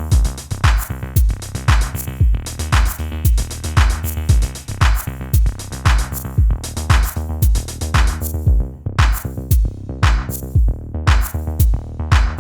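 Background electronic music with a steady drum-machine beat, a deep kick drum about twice a second under sharp snare and hi-hat hits.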